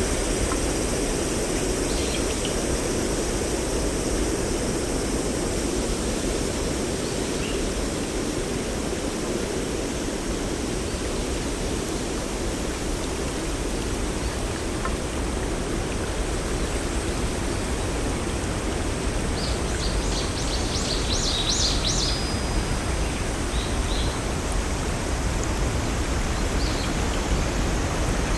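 Steady rush of flowing water, with a quick run of high bird chirps about twenty seconds in and a few faint chirps elsewhere.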